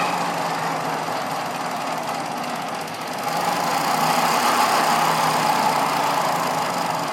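A motor vehicle engine running steadily, growing louder about halfway through and easing off near the end.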